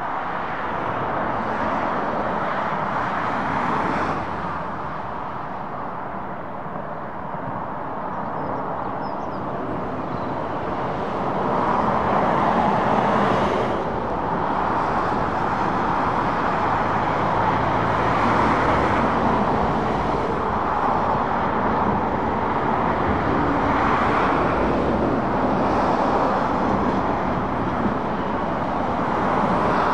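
Traffic on a dual-carriageway trunk road: the steady noise of cars, vans and lorries, mostly tyre noise on tarmac, swelling and fading several times as vehicles pass. Near the end a Renault lorry draws close and the sound grows louder.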